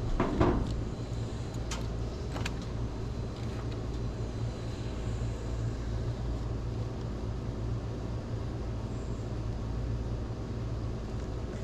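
Steady low rumble, like distant traffic or wind, with a few faint clicks in the first couple of seconds.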